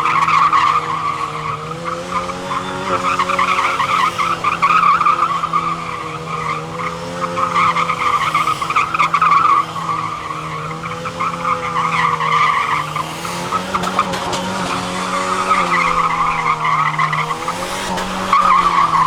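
Car doing a burnout: the engine is held at high revs, wavering slightly up and down, while the rear tyres spin and squeal without a break.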